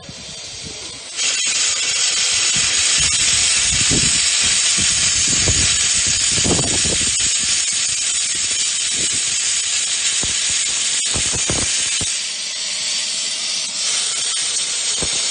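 15-inch gauge steam locomotive Whillan Beck, standing, venting steam hard from low at its front end: a loud, steady hiss that jumps up about a second in.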